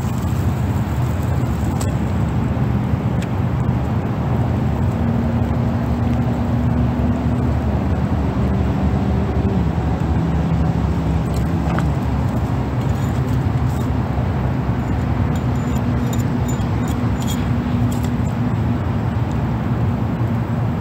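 Steady low rumble of motor traffic with an engine hum that drops in pitch about midway, and a few faint clicks in the second half.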